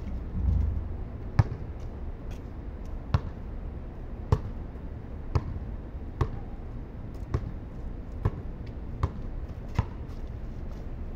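Basketball bouncing on a concrete court as it is dribbled, about nine sharp bounces at an uneven pace.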